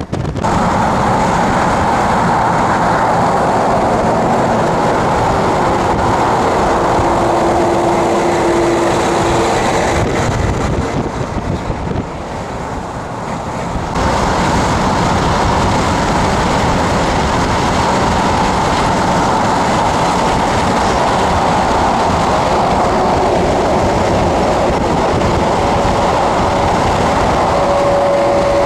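Highway driving noise from a moving car with the window down: a steady rush of tyres and wind, with semi-trucks running alongside. It drops for a few seconds about ten seconds in, and a steady hum comes in near the end as a tractor-trailer runs right beside.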